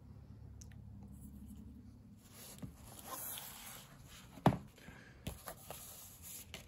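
Paper rustling as a notebook is opened and its page pressed flat, after some muffled handling of the pen. A single sharp knock comes about two thirds of the way through, followed by a few small clicks.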